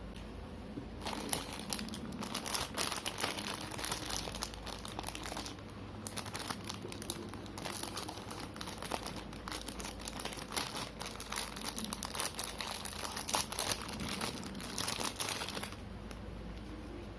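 Plastic packaging crinkling as it is handled and unwrapped, in two long stretches of dense crackling with a brief pause about five and a half seconds in. It stops about a second and a half before the end.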